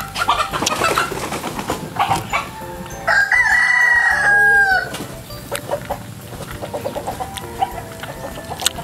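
A rooster crows once, about three seconds in: one long, loud call that falls in pitch at its end. Around it, chickens cluck, and there are close-up wet clicks of chewing and sucking on chicken feet.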